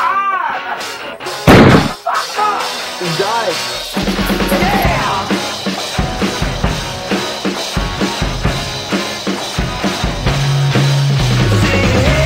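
A single loud pistol shot about a second and a half in, with a voice crying out around it. From about four seconds in, rock music with a driving drum kit takes over.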